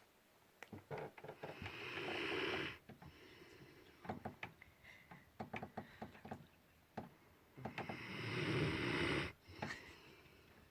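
Snoring: two long noisy breaths about six seconds apart, each swelling in loudness, with scattered small clicks between them.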